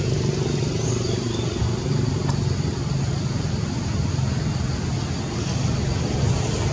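Steady low engine hum with road-traffic noise.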